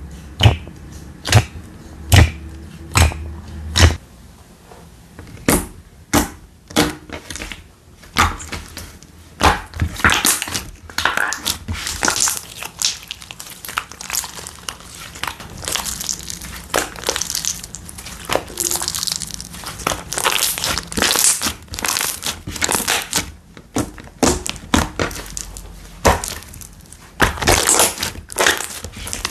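Slime being squeezed and poked by hand: sharp pops about once a second at first, then dense crunchy crackling for the rest of the time.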